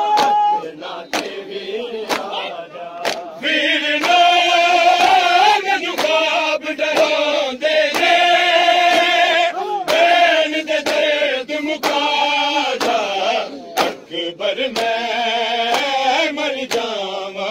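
A crowd of men chanting a mourning lament (noha) in held, sung lines, with sharp chest-beating strokes (matam) about once a second.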